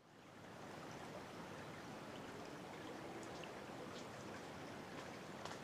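Steady rush of running stream water, fading in at the start, with a few faint high ticks scattered through it.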